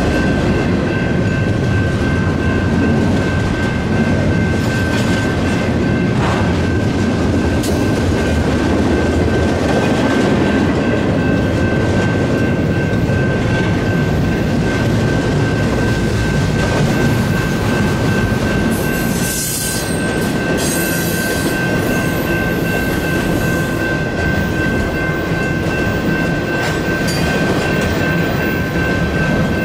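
Union Pacific double-stack intermodal train cars rolling past steadily, their wheels clattering over the rails, while the grade-crossing warning bells ring continuously.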